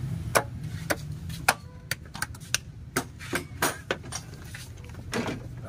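A string of irregular sharp knocks and metallic clinks, about a dozen, from hand tools and engine parts being handled during repair work. A low steady hum runs beneath, stronger in the first couple of seconds.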